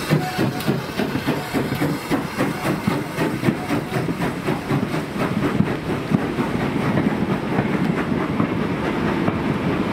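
Steam-hauled train passing, with a fast, even rhythmic clatter of wheels and running gear on the rails throughout.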